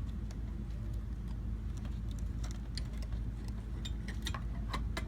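Small clicks and light rattles of an HID xenon bulb and its plug connector being worked into place in a headlight assembly, mostly in the second half, over a steady low hum.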